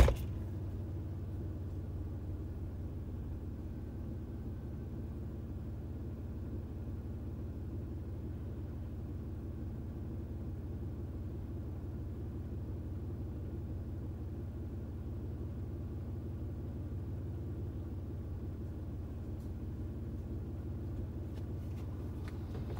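Toyota 4Runner's engine idling, a steady low hum heard from inside the cabin, with one sharp thump at the very start.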